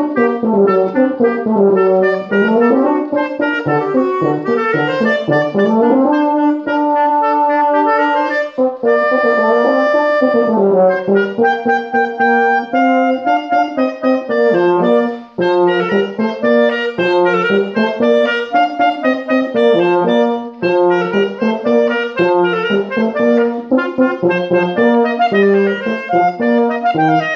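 Clarinet and tenor horn playing a duet, the two melodic lines weaving around each other. After a brief break about halfway, the playing settles into a more even, repeated rhythm.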